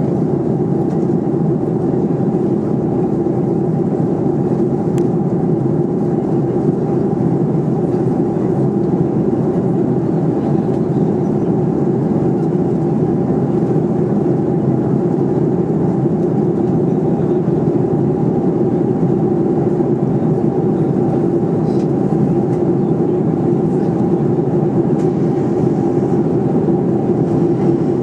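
Steady in-flight cabin drone of a Boeing 737-400, its CFM56-3 jet engines and the rush of air over the fuselage heard inside the cabin from a seat over the wing. The noise is even and unbroken, a low rumble with a steady hum in it.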